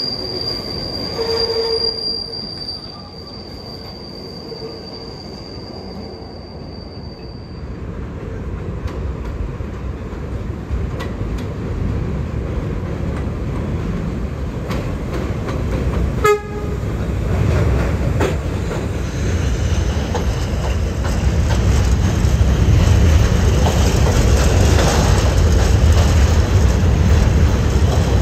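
New York City subway train wheels squealing with a steady high whine that fades out over the first several seconds. A short horn toot comes about a second in, and a sharp one about halfway through. After that a train's low rumble builds and stays loud through the rest.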